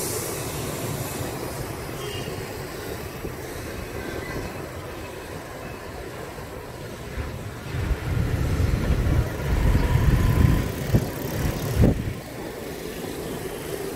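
City street traffic noise: a steady hum of passing vehicles that turns into louder, uneven low rumbling about eight seconds in, with a few short thumps.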